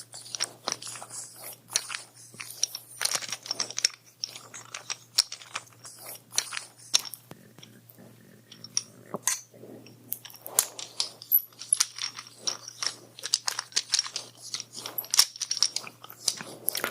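Close-up crackling and scratching right at the microphone, the touch sounds of an ear-cleaning or scalp-massage role-play: dense, irregular crunchy clicks, easing off for a moment about eight seconds in.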